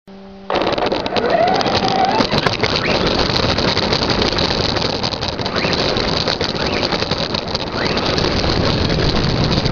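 Tamiya Stadium Blitzer electric RC stadium truck driving, heard from a camera mounted on its front: a loud, continuous rush of tyre and wind noise from half a second in. The motor's whine rises in pitch as the truck speeds up, about a second and a half in.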